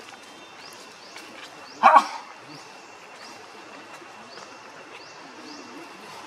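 One short, loud bark with a double peak about two seconds in, over faint high chirps repeating about twice a second.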